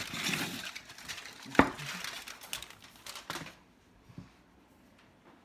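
Kitchen handling noises: dishes and utensils rustling and clattering, with one sharp knock about a second and a half in. The noise dies down after about three and a half seconds.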